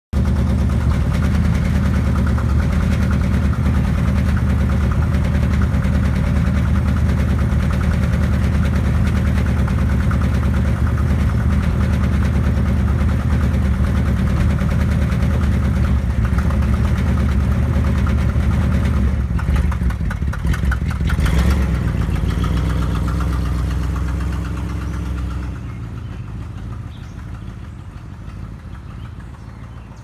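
1959 Ford Thunderbird's V8 idling steadily, then changing pitch with a sharp clunk about twenty seconds in as the car pulls away. The engine sound then fades steadily as the car drives off.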